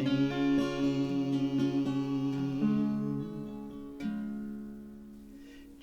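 Acoustic guitar strumming under a sung line, the last word 'rain' held. A final chord is strummed about four seconds in and rings out, fading before the next verse.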